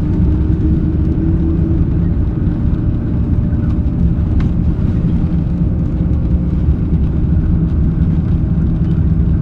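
Mitsubishi Fuso Aero Midi (PA-MK27FH) city bus running under way, heard from inside the cabin: a steady low diesel engine and drivetrain drone. A faint whine comes in about halfway through.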